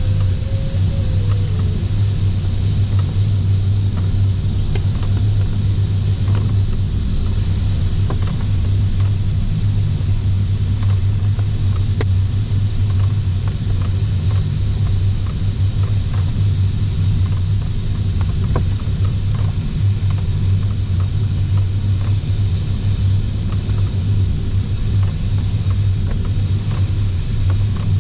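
Steady low rumble of airflow around a sailplane's cockpit in flight, with faint scattered ticks.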